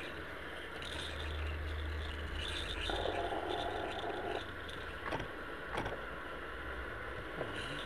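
Roundhouse Karen gas-fired live-steam locomotive simmering with a steady steam hiss. A louder rush of hissing comes about three seconds in, then a few sharp clicks as hands work on the loco.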